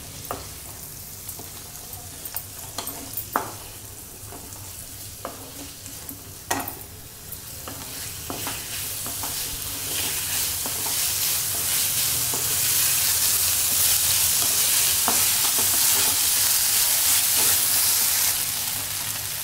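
Sauced chicken strips, onion and capsicum sizzling in a nonstick wok while a spatula stirs them, with scattered scrapes and knocks of the spatula against the pan. The sizzle grows louder from about eight seconds in and drops back near the end.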